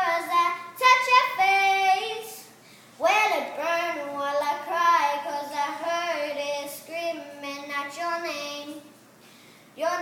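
A young boy singing a cappella, holding long notes with bends in pitch, with two short breaths or pauses between phrases.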